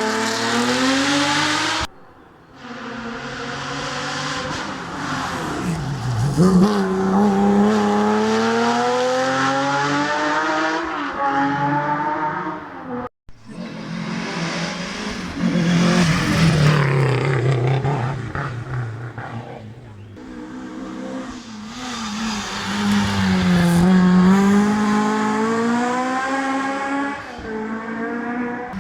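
Historic rally car engines revving hard, the pitch climbing and dropping through gear changes as the cars drive past at speed. The sound cuts abruptly twice, about two seconds in and near the middle, as separate passes follow one another.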